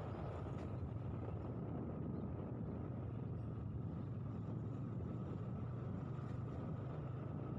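A vehicle's engine running steadily as it travels along, with a constant drone and road noise.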